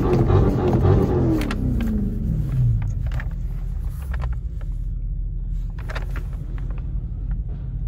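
Car engine rumbling, its pitch falling over the first three seconds as the revs drop, then running on as a steady low rumble.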